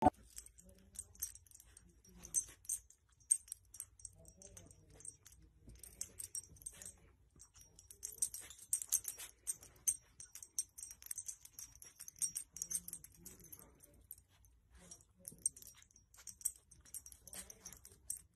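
Faint, irregular quick clicks of a dog sniffing and licking at a swaddled newborn, with a few soft, brief low vocal sounds now and then.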